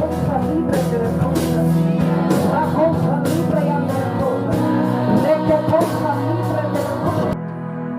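Music with singing over held keyboard chords and a steady drum beat; about seven seconds in the drums and voice stop, leaving only the sustained chords.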